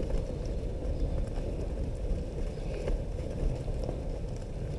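Young Holstein heifers walking through a straw-and-muck yard, their hooves shuffling and clicking faintly over a steady low rumble.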